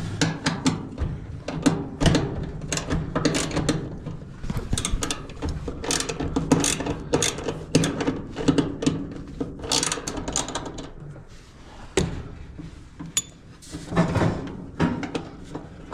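Irregular metal clicks, knocks and scraping as a seized dryer idler pulley and its arm are worked at. The pulley's bearing is stuck solid.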